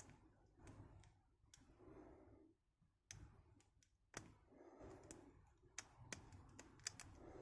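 Faint, irregular metallic clicks of lock picks and a tension wrench working the pins inside a small aluminium padlock, coming more often in the second half, with soft breathing between them.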